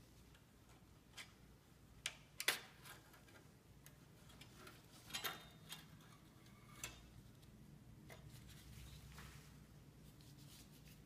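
A few faint, sharp clicks and light scrapes of a thin steel palette knife working against the brass marquetry and veneer of a Boulle box lid. The loudest click comes about two and a half seconds in, and a few more follow around five to seven seconds, with near silence between them.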